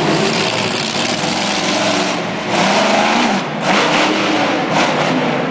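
Monster truck engine revving hard, its pitch rising and falling as the truck accelerates and launches over a row of crushed cars.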